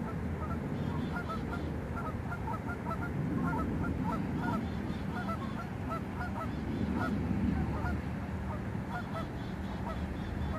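Geese honking: many short calls overlapping and repeating, over a steady low rumble.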